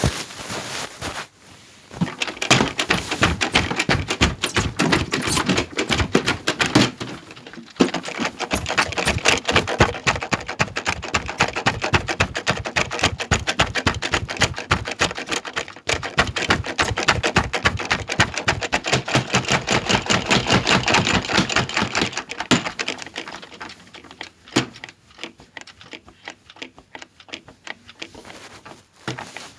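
Washing machine shaking hard on its cycle, its cabinet rattling and knocking in a fast, steady rhythm; the knocking eases off over the last several seconds.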